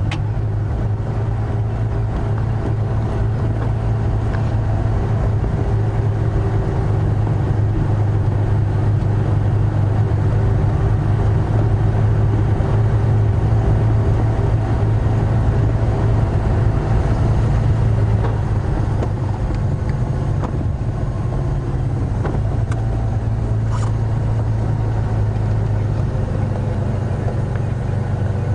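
Safari vehicle's engine running with a steady low drone, swelling a little and easing off about eighteen seconds in.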